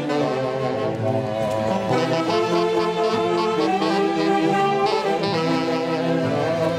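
An Andean orquesta típica plays a tunantada, with saxophones carrying the melody in held notes.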